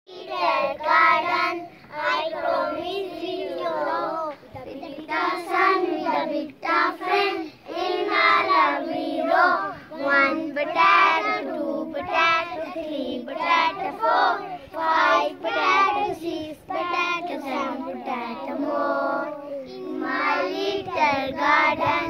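A group of young children singing a song together in unison, in phrases broken by short pauses for breath, with no instruments.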